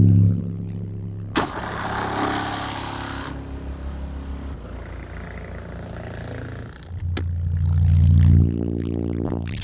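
Deep bass notes from two 18-inch Soundqubed HDX3 subwoofers pushed hard. The bass is loudest at the very start and swells loud again about seven seconds in.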